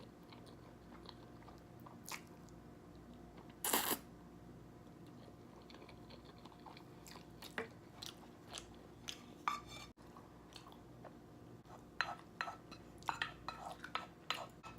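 A person chewing a mouthful of creamy pasta close to the microphone, with small scattered mouth clicks. There is one louder brief noise about four seconds in.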